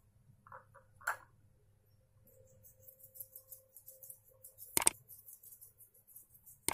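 Mouse-click sound effects from a subscribe-button animation: a loud click about five seconds in as the like button is pressed, and another at the end as subscribe is pressed, with a softer click about a second in. Faint background music plays underneath.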